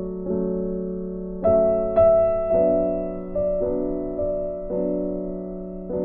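Background piano music: soft, slow chords, with a new chord struck about once a second.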